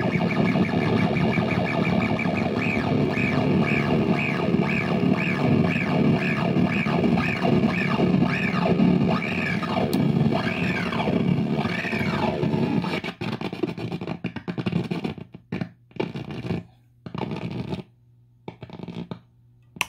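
Magpie Pedals Fruits effects pedal putting out a loud, noisy, distorted drone with a pitch sweep that arcs up and down about twice a second, the sweeps slowing and widening near the middle. About two-thirds of the way in the sound starts cutting in and out in short stuttering bursts, then stops.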